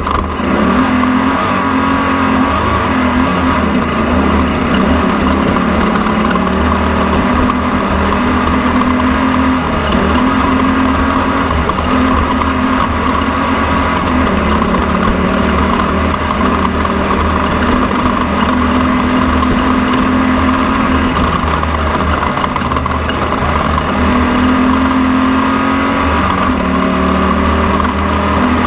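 An engine running steadily and loudly, its drone wavering slightly in pitch now and then, over constant rushing noise.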